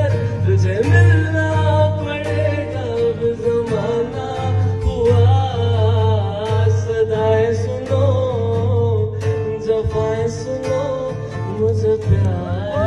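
A man singing a melody into a microphone while strumming a Yamaha acoustic guitar.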